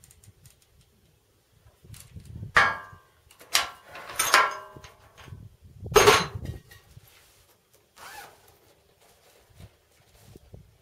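Metal clanks and ringing clinks from a Barrett 99-1 single-shot .50 BMG rifle's bolt being worked and cartridge brass being handled between shots. Four sharp clanks come between about two and a half and six seconds in, the last the loudest, then a fainter clink about eight seconds in.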